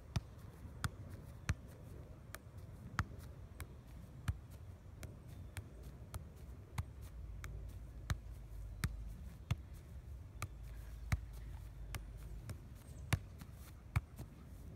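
Soccer ball being juggled: a steady run of sharp thuds as the ball is kicked up, about one or two touches a second.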